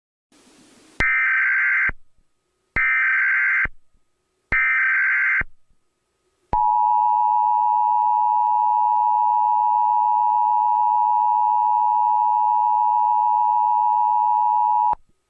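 Emergency Alert System tones: after a faint hiss, three short bursts of SAME header data, a shrill two-tone digital warble lasting just under a second each, then the EAS attention signal, a steady two-tone alarm held for about eight seconds that cuts off sharply. Together they mark the start of a new alert message.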